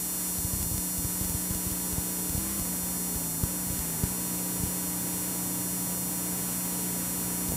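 Steady electrical hum and hiss from a blank stretch of VHS tape, with a few faint clicks around the middle as the picture breaks into tape noise.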